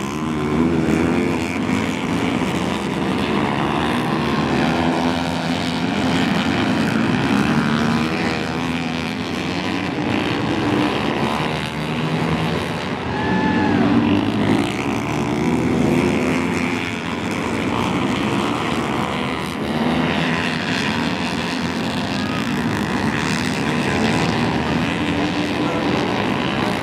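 Several dirt-bike engines racing on a dirt flat track, their pitch climbing and falling as the riders open the throttle on the straights and back off into the turns.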